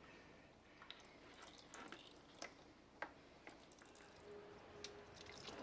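Faint, irregular drips and splashes of engine oil running from the motorcycle's crankcase drain hole into a plastic drain pan.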